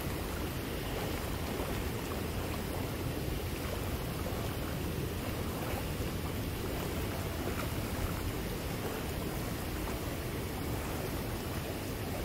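Steady wind rumbling on the microphone: a continuous low hiss, heaviest in the bass, with no distinct events.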